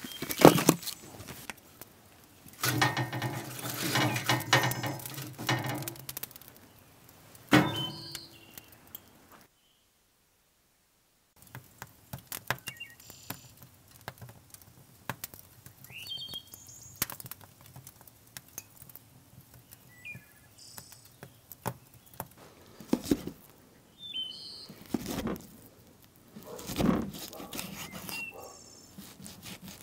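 Intermittent knocks and clatter, with short bird chirps now and then. A low steady hum comes in for a few seconds near the start, and the sound drops out completely for about two seconds near the middle.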